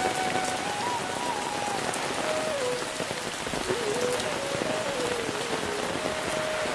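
Heavy, steady rain falls on the road and the foliage, and drops hit the umbrella held overhead. Underneath, a faint thin tone wanders up and down in pitch.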